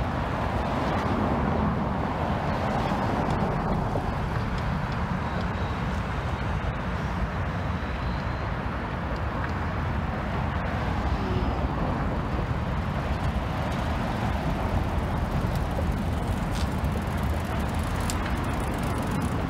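Steady road traffic noise from passing cars, an even rushing sound with no single event standing out.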